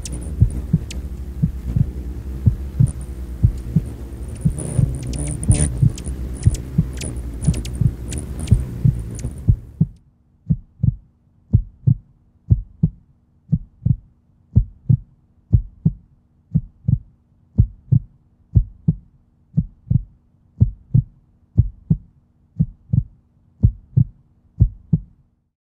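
Heartbeat sound effect, a slow, steady double thump about once a second. For the first ten seconds it sits over a dense low rumble, which then drops away, leaving the beats alone over a faint steady hum until they stop just before the end.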